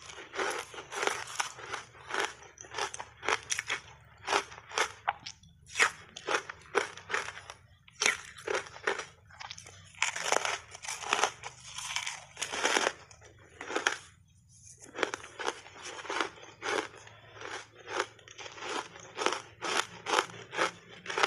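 Close-miked crunching and chewing of crushed ice coated in matcha powder: a quick run of crisp crunches, several a second, with short pauses, mixed with the crunch of fingers digging into the box of ice.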